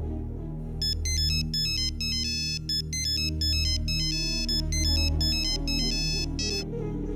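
Mobile phone ringtone playing a quick, high-pitched electronic melody that starts about a second in and cuts off near the end, over soft background music.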